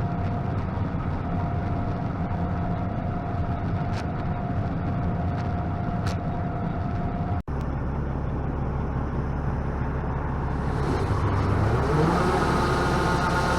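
Engine of heavy farm machinery running steadily with a steady whine above it. After a sudden break about halfway through, an engine runs on and rises in speed near the end, then holds the higher speed.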